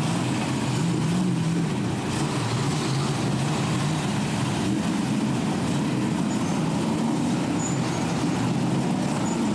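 Several stock-car race engines running at low speed as the cars file past, a steady rumble whose pitch drifts slightly up and down.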